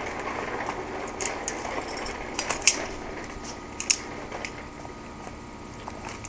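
Hand tools working on a small engine during teardown: scattered sharp metallic clicks and clinks of ratchet and parts, the loudest about two and a half and four seconds in, over a steady background hum.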